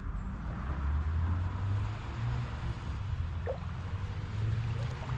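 Stream water running and gurgling steadily, with a short faint squeak about three and a half seconds in.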